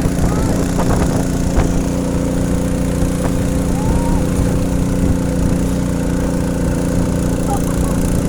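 A boat's engine running steadily at a constant speed, with an even hum.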